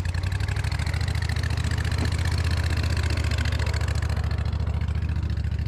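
Boat motor idling steadily, a low even running sound with no change in speed.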